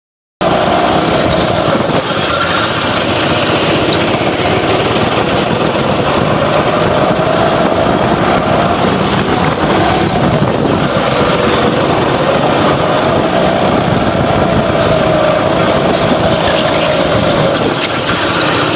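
Go-kart engine running hard, cutting in abruptly about half a second in, its pitch wavering up and down as the throttle is worked through the corners.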